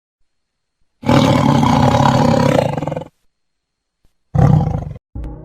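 A loud, rough roar lasting about two seconds, then a second, shorter roar near the end, with music starting just as it stops.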